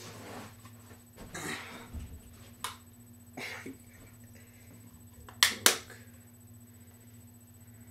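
A few short scraping noises and sharp clicks, the loudest a pair of sharp clicks about five and a half seconds in, over a steady low hum.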